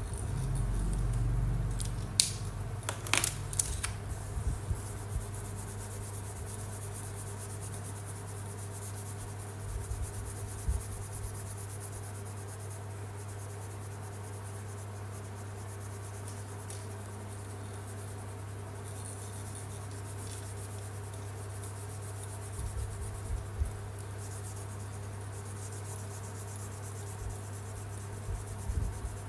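Felt-tip marker scratching back and forth on paper as a picture is coloured in, with a few sharp clicks and small knocks, over a steady low hum.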